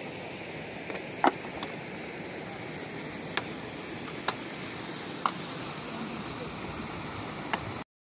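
Steady rush of flowing river water, with a handful of sharp knocks of stone on stone as rocks are laid in gabion baskets over the culverts, the loudest about a second in.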